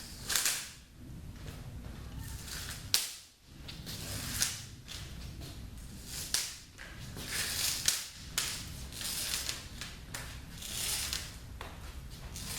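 Old spline being pulled out of a window screen frame's groove in a series of rasping pulls, with sharp snaps, the loudest about three seconds in.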